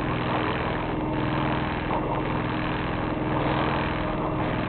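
A sailboat's auxiliary engine running steadily under way, a constant even hum with some rushing noise over it.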